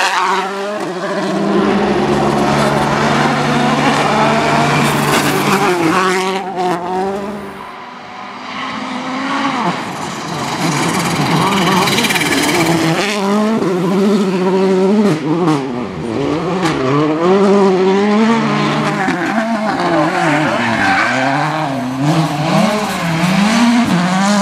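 Volkswagen Polo R WRC rally cars' 1.6-litre turbocharged four-cylinder engines revving hard at flat-out pace, the pitch rising and falling quickly through gear changes, over several passes in a row, with gravel and tyres scrabbling on the loose surface.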